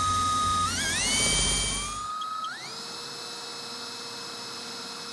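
Cordless drill whining as it bores through a fiberglass boat hard top. The motor speeds up in steps about a second in, cuts out near two seconds, then spins up again and holds a steady, higher whine.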